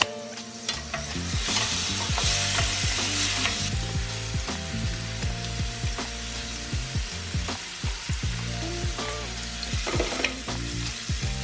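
Food frying and sizzling in a pan while being stirred, with repeated short taps and scrapes of a utensil against the pan. The sizzle is loudest from about one to four seconds in, then settles.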